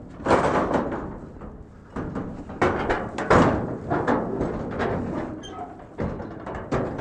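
Metal stock trailer gate being swung shut and latched: several loud metallic bangs and clanks, a few seconds apart, with rattling between them.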